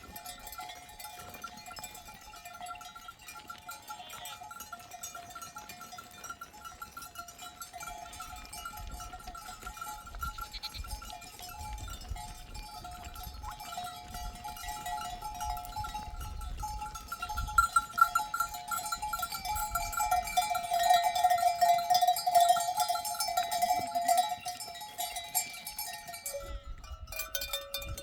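Sheep bells jangling steadily as a grazing flock moves, growing louder past the middle and breaking off briefly near the end.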